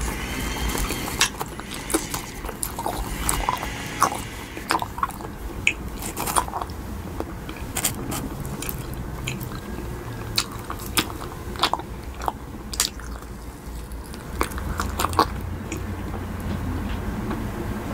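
Close-miked ASMR sounds of gummy candy being handled and eaten: scattered sharp, sticky clicks and smacks, with a cluster of louder ones near the end as a green gummy candy is bitten.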